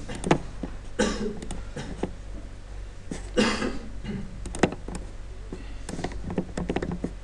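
Several sharp computer-mouse clicks and two short breathy vocal noises, about a second in and at about three and a half seconds, over a steady low electrical hum.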